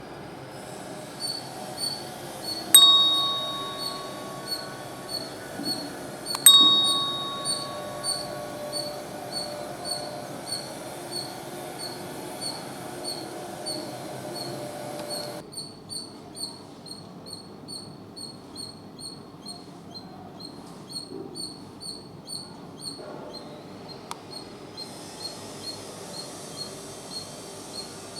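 A squirrel's short, high chirping calls repeated steadily, about one and a half a second, with two loud ringing tones about three and six and a half seconds in that fade away.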